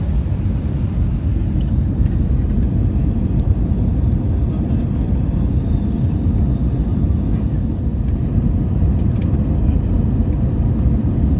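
Airbus A320 cabin noise: a steady, loud, low rumble of the engines and airflow heard from inside the passenger cabin.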